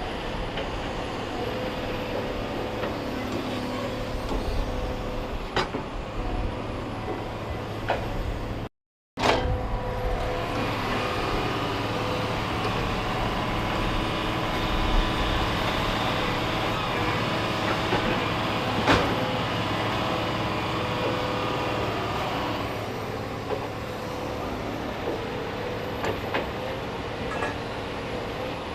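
Heavy forestry machine's diesel engine running steadily, with a few sharp knocks. The sound cuts out completely for a moment about nine seconds in.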